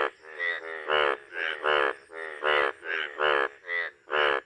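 Indian bullfrog calling with its vocal sacs puffed out: a steady run of short, buzzy croaks, about two or three a second.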